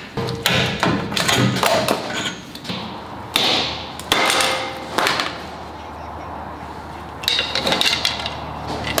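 Hammer and steel hand tools striking and clanking on a truck's rear axle hub: a quick run of sharp metal knocks, a lull with a steady low hum, then more clanking near the end.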